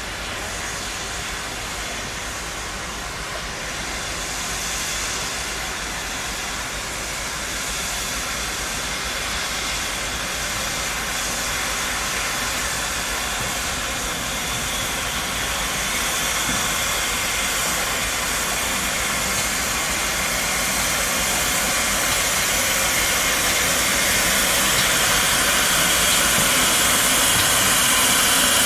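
Steam locomotive hissing steam: a steady hiss that grows gradually louder.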